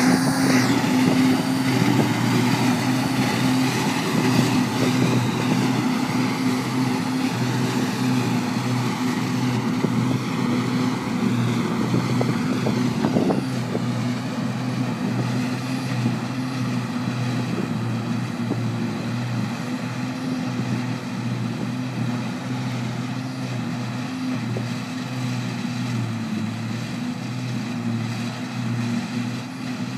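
John Deere 6810 self-propelled forage harvester picking up grass silage, with a tractor and trailer running alongside. Their engines and machinery make a steady, continuous drone that slowly fades as they move away.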